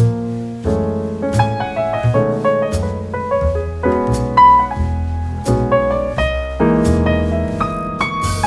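Background music: piano with a steady bass line and light percussion.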